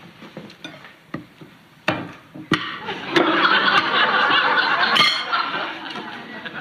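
A few sharp clinks of cutlery on plates, then a studio audience laughing from about three seconds in. The laughter is the loudest part.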